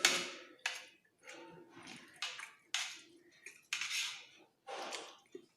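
Spoon scraping and clinking against a plate of fried rice in a run of short, separate strokes, as someone scoops up mouthfuls.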